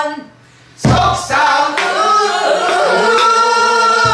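Woman singing pansori while accompanying herself on a buk barrel drum struck with a stick. After a brief pause, one drum stroke lands about a second in and the voice enters with a long sung phrase that ends on a held note.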